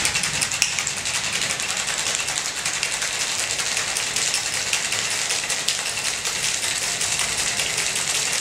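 Ice rattling hard inside a stainless-steel cocktail shaker, shaken vigorously in a fast, even clatter of knocks.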